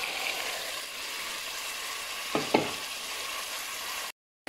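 Split chickpeas (chana dal) added to a pan of oil-separated onion and spice masala, sizzling steadily in the hot oil. Two sharp knocks come a little past halfway, and the sound cuts off suddenly just before the end.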